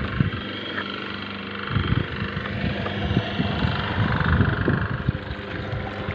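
Electric grape-pressing machine running, its motor and gearbox giving a steady hum while it presses out grape pulp and juice. Irregular low thumps hit the microphone from about two seconds in.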